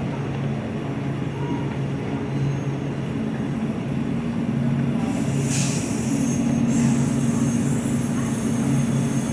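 Steady low engine drone of street traffic, with a brief hiss about five and a half seconds in.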